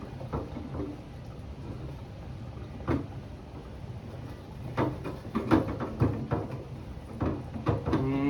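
A battery-powered siphon pump hums steadily as it draws stale fuel out of a portable generator's tank. Scattered knocks and clunks of handling sit over the hum: one about three seconds in, then several from about five seconds on.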